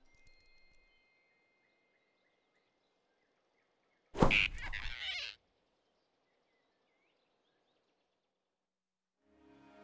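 Animated-film sound effect of the rabbit snatching the flying squirrel: a sudden sharp thud with a rushing whoosh, lasting about a second, about four seconds in. Otherwise faint forest ambience, with soft orchestral music fading in near the end.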